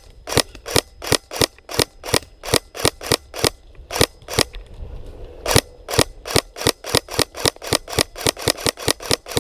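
Airsoft gun firing rapid single shots, sharp cracks about four a second, with a pause of about a second near the middle before the firing resumes slightly faster.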